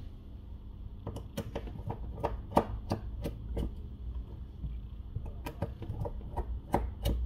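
Light, sharp clicks and ticks, roughly three a second in two runs, from a precision Phillips screwdriver and tiny screws as the screws are worked out of a phone's plastic midframe.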